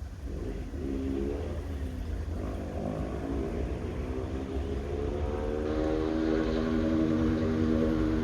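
A motor vehicle's engine running over a steady low rumble, its pitch climbing steadily through the second half as it speeds up.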